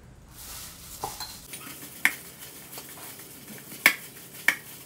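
A metal spoon stirring a tuna-mayonnaise mix in a ceramic bowl and knocking against its side, with about five sharp clinks. The loudest comes about four seconds in.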